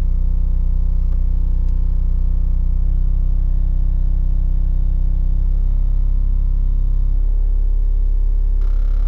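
MACH Audio Mustang subwoofers, heard inside the car's cabin, playing a loud, steady deep bass test tone at around 30 hertz. The tone's pitch steps up four times, about every two seconds, as the frequency is raised.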